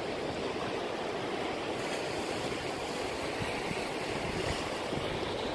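Steady wash of small sea waves lapping over a shallow rocky shore.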